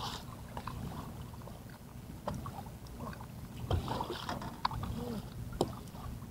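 Scattered sharp knocks and clatter as a landing net and rod are handled in a Sun Dolphin Pro 120 fishing boat, over a steady low hum.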